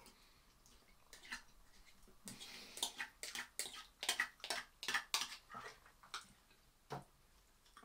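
Close-up chewing of a mouthful of canned tuna: a run of wet mouth smacks, about two or three a second, from about two seconds in until near the end, then one duller knock.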